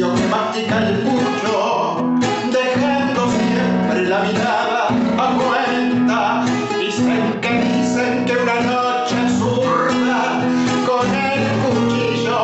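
A male voice singing a tango over an acoustic guitar accompaniment, the guitar plucking and strumming without pause.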